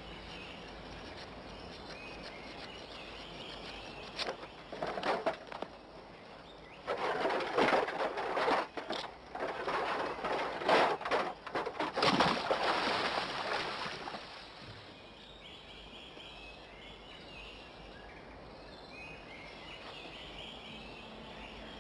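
Outdoor ambience with faint bird chirps. From about four to fourteen seconds in it is broken by a run of loud, irregular noisy bursts and clattering, which then die away.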